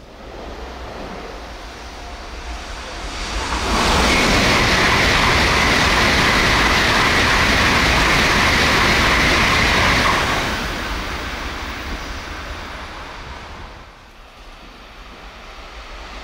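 N700S Shinkansen passing at high speed, about 258 km/h: a rush of air and wheel noise builds over a couple of seconds. It holds loud and steady for about six seconds with a high whine over the rush, then fades away. Near the end the next train's sound begins to rise.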